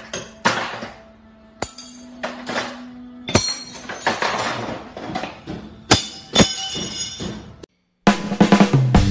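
Scattered drum and cymbal hits, each ringing out, with uneven gaps between them. After a brief silence near the end, music with a steady drum-kit beat and bass line starts.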